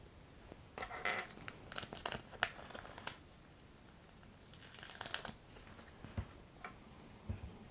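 A LEGO sticker sheet crinkling and crackling as it is handled and a sticker is peeled off its backing, in several short bursts over the first three seconds, then a brief papery rustle about five seconds in, with a few light clicks.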